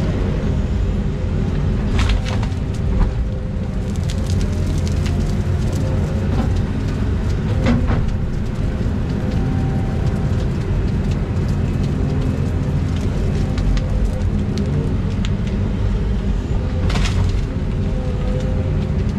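Volvo EC220E excavator's diesel engine running steadily under work, with a few sharp cracks and knocks.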